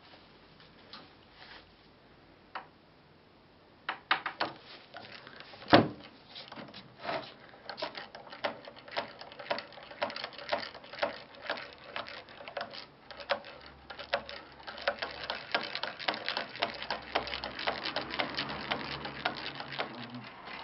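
A metal spatula mixing printing ink on a glass plate: short clicks and taps about twice a second, with one sharp knock about six seconds in and more scraping near the end.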